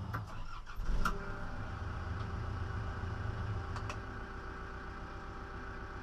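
John Deere 310SG backhoe's diesel engine running, heard from inside the cab. A few clicks and a sharp knock come about a second in, after which a steady whine joins the engine note. The low rumble eases about two-thirds of the way through.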